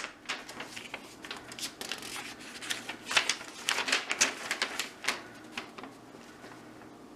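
A folded paper leaflet being unfolded and handled, giving a run of crackling rustles that is loudest about three to four seconds in and dies away after about five and a half seconds.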